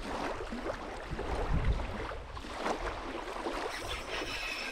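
Wind buffeting the microphone and small waves lapping the sandy shore, with a spinning reel being wound near the end as the lure is retrieved.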